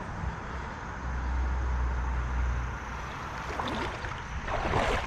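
Steady rush of creek water with wind rumbling on the microphone, the rumble heaviest in the first half; the noise swells briefly near the end.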